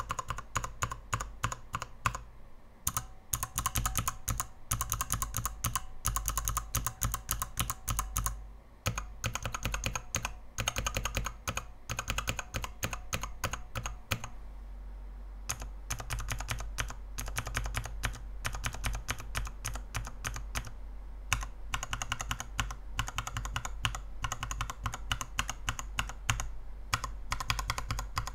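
Mechanical keyboard switches being pressed rapidly in a KBDfans 72-switch tester with an acrylic base and XDA-profile keycaps: a dense run of key clacks with a few short pauses.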